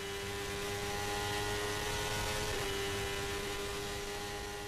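A steady humming drone with a hiss over it, swelling up and fading away again; a slight wobble in its pitch about halfway through.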